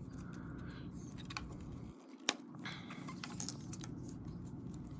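Faint clicks and handling of a plastic Transformers action figure's parts being worked during transformation, with one sharp click about two seconds in, over a steady low hum.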